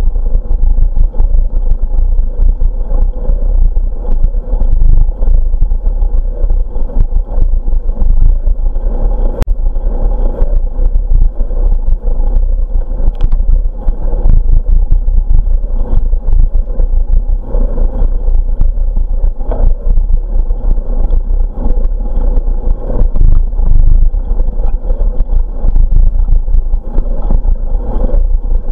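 Wind buffeting the microphone of a camera carried on a moving bicycle: a loud, steady rumble with many small knocks and rattles from the ride, and one sharp click about ten seconds in.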